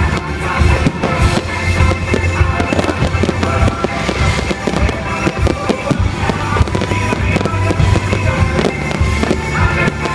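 Aerial fireworks bursting and crackling in quick, irregular succession, with music playing loudly alongside.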